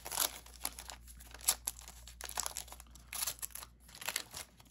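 Paper wrapper of a 1991 Fleer basketball card pack crinkling and tearing as it is peeled open by hand, a run of short, irregular crackles.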